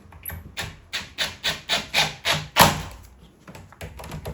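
Quick back-and-forth abrasive strokes on a small piece of plywood, about three or four a second, rubbing it down by hand to fit a doorknob hole patch. The strokes ease off about three seconds in.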